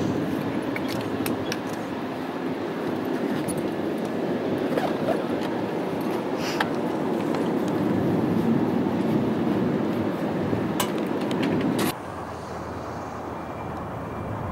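Twin turboprop engines of a Beechcraft King Air 300-series (RAF Shadow) running as it taxis: a steady rumbling drone with a few faint clicks. About twelve seconds in the drone drops suddenly to a quieter, more distant level.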